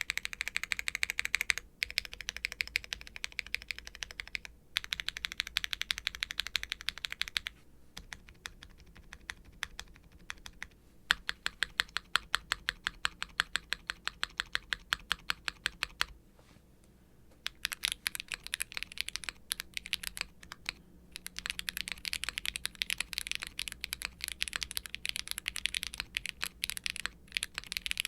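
Typing on a Daring Run Polygon7 aluminium mechanical keyboard with HMX KO1 light tactile switches, GMK double-shot ABS keycaps and a polypropylene plate in gasket mount. Fast runs of keystrokes are broken by brief pauses, with a stretch of slower, evenly spaced key presses about halfway through.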